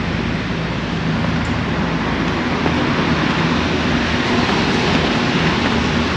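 Steady road-traffic noise with a low engine hum under it.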